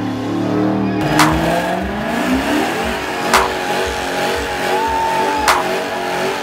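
Dodge Charger's engine revving high with its tyres spinning in a burnout, the engine pitch climbing and wavering over the hiss of the tyres. A sharp crack comes roughly every two seconds.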